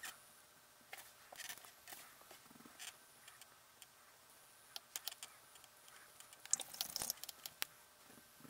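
Faint scattered taps and short scrapes of a small paintbrush dabbing on a canvas panel and being handled, with a busier run of clicks about six and a half seconds in.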